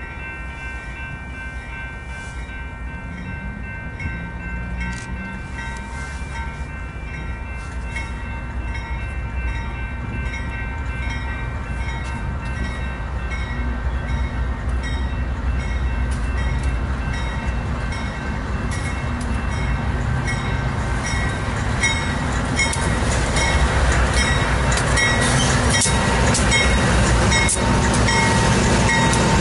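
Union Pacific freight train's diesel locomotives approaching, their engine and rail noise growing steadily louder until the lead units pass close by near the end.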